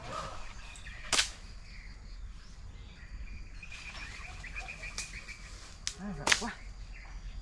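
Several sharp snaps: a loud one about a second in, two fainter ones later, and another loud one near the end. A faint high trill sounds in the middle.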